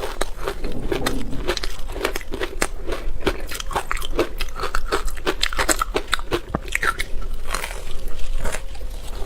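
A person biting and chewing hard ice close to the microphone: dense, sharp crunches several times a second.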